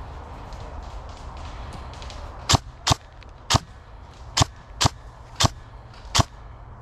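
Airsoft gun fired in single shots: seven sharp cracks, starting about two and a half seconds in and spaced roughly half a second to a second apart.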